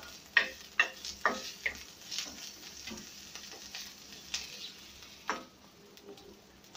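A wooden spatula scraping and tapping against a metal karahi as boiled cabbage leaves are stirred and scooped out of hot ghee. A series of sharp scrapes comes over a soft sizzle, and the sizzle fades near the end.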